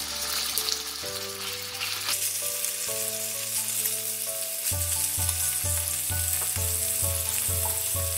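Raw boneless chicken pieces sizzling in hot oil in a nonstick frying pan, a steady frying hiss. Background music plays along, with a regular bass beat coming in about halfway.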